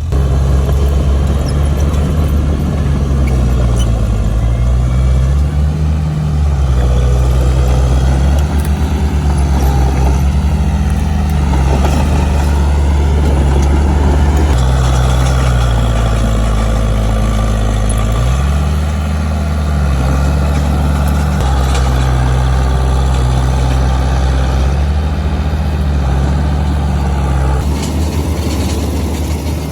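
Heavy diesel engine of an earthmoving machine running hard, its pitch rising and falling every few seconds as the load changes.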